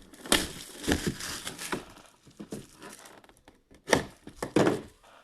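Packaging of a TriStar mini football helmet being handled and opened: irregular crinkling and tearing with several sharp knocks, the strongest near the start and again about four seconds in.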